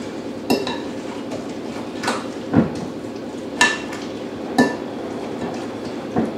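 A utensil clinking against a glass mixing bowl while stirring thick guacamole. About six sharp knocks come at uneven intervals, a few of them ringing briefly.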